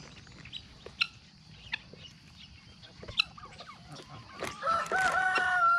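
Chickens and other poultry clucking quietly, with a few short sharp sounds. Near the end a rooster begins to crow, rising into one long held note.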